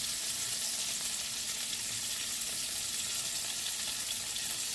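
Chicken wings and eggplant wedges sizzling steadily as they fry in hot oil in a frying pan.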